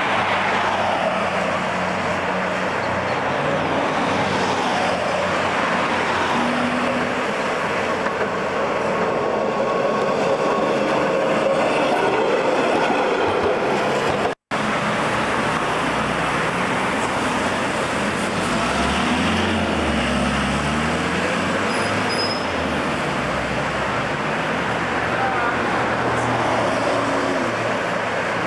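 Road traffic on a busy street: cars and other vehicles running and passing, with engine notes rising and falling as they pull away. The sound cuts out for an instant about halfway through.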